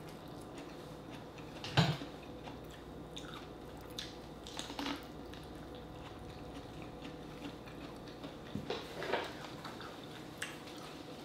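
Eating sounds: biting into corn on the cob and chewing, in scattered short bites and smacks. The loudest bite is about two seconds in, with smaller ones around five and nine seconds.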